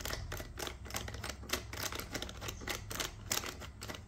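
Many small, irregular clicks of a phone mount being handled and fitted to a helmet.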